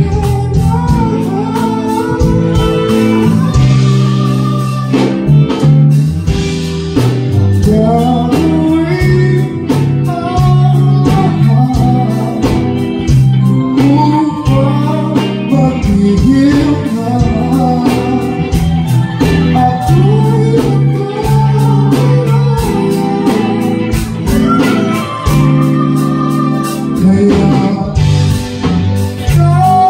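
Live band music: a male singer with electric guitar, electric bass and drum kit, the drums keeping a steady beat.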